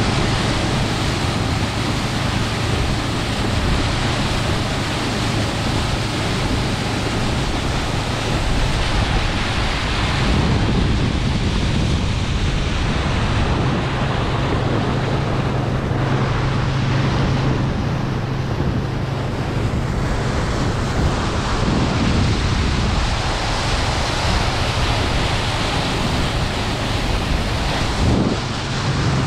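Shetland Sheltie motorboat running at speed under its outboard motor: a steady low engine drone under heavy wind buffeting on the microphone and the rush of water off the hull and wake.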